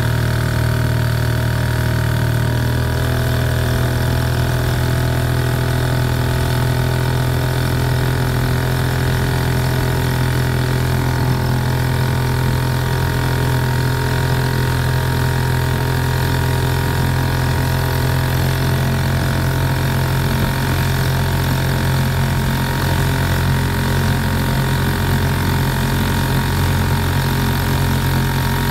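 1928 Elto Speedster 7 hp two-stroke outboard motor running steadily at speed, pushing a small aluminium boat, on its freshly rebuilt ignition system.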